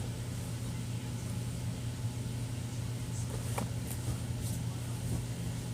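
Steady low hum, with a few faint clicks a little past halfway.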